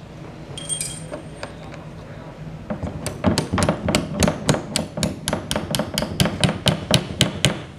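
Steel hammer tapping a drill bit held as a punch against a freezer door hinge, driving the hinge pin out. A quick, even run of sharp metal-on-metal strikes, three to four a second, starts about three seconds in.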